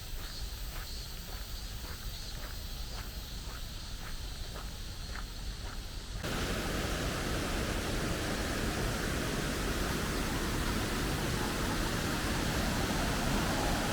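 Footsteps on a forest path, about two a second, over quiet background. About six seconds in, a louder steady rushing noise takes over abruptly and continues to the end.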